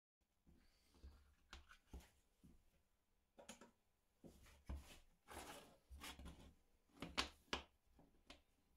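Faint workshop handling sounds: scattered light knocks and clicks of parts and tools being set down and moved, with a brief scraping about five seconds in and the sharpest knocks about seven seconds in.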